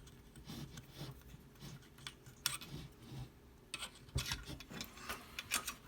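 Scattered light clicks and rubbing from an AR-15 rifle being handled while a .223 laser bore sight cartridge is slipped into its chamber.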